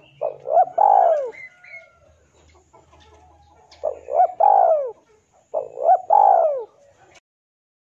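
Male spotted dove (tekukur) giving its rival-challenging call, three coo phrases, each a couple of short coos followed by a longer arching coo. The sound cuts off abruptly near the end.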